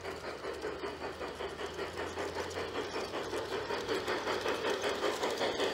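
G-scale model steam locomotive pulling a short freight train along garden track: a rapid, even rhythmic beat of about five a second that grows slowly louder as the train draws near.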